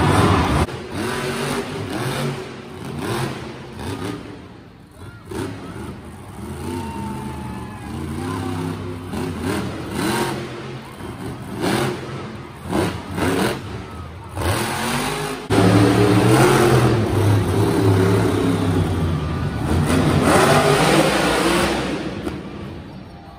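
Monster truck engines revving hard and falling off again and again on an arena dirt floor, with sharp knocks as the trucks bounce and tip over. The revving jumps suddenly louder about two thirds of the way through and fades near the end.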